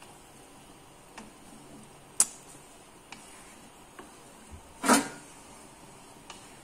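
A spatula stirring a thick coconut-milk soup in a wok, knocking against the pan now and then: a few light taps, a sharp click about two seconds in, and a louder knock about five seconds in.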